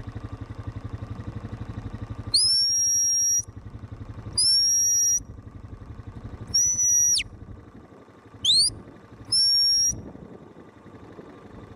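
Sheepdog whistle commands: five sharp, high-pitched blasts, most held steady for about a second. The third drops away at its end and the fourth is a short rising sweep. These are directions to a working border collie gathering sheep.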